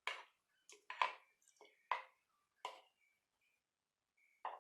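Pieces of smoked pork dropped one by one into a clay pot, each landing with a short, sharp knock, about one a second four times, then another knock near the end.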